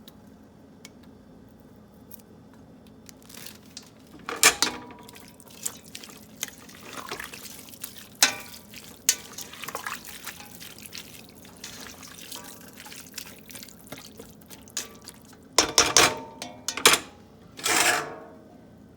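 Cabbage and onions simmering in chicken broth in a pot, with wet stirring and a utensil clinking against the pot several times, loudest near the end.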